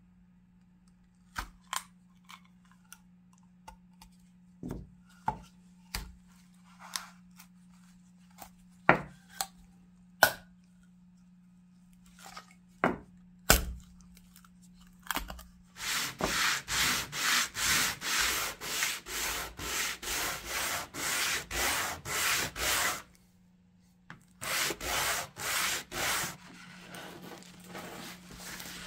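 Wooden drawer parts knocking and clicking as they are handled and taken apart, then a wooden drawer panel rubbed back and forth on a flat sheet of sandpaper. The sanding goes in even strokes, about two a second, stops for about a second, resumes for a few strokes, then carries on more lightly.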